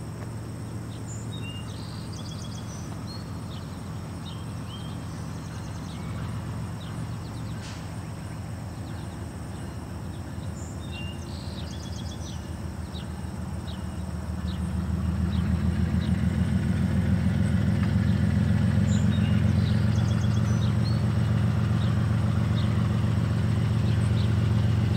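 Diesel locomotive of a freight train approaching, a low steady engine rumble that grows clearly louder a little over halfway through. Birds sing short repeated phrases over it.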